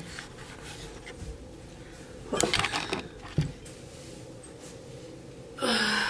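Handling noise as a phone camera is moved and set down: rustling and a few knocks over a steady low hum, with a brief voice sound near the end.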